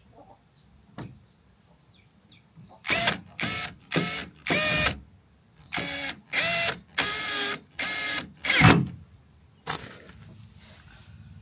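Cordless drill-driver motor whining in about nine short bursts, a screw driven through the plastic sheet into the metal frame.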